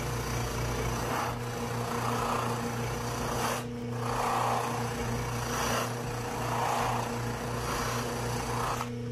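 Bench motor with a cloth buffing wheel running with a steady hum, as the edge of a Kydex holster is pressed against the spinning wheel. The result is a rasping rub that swells and eases several times and breaks off briefly a little past three and a half seconds in. The buffing heats and slightly melts the roughly sanded Kydex edge, leaving it smooth and shiny.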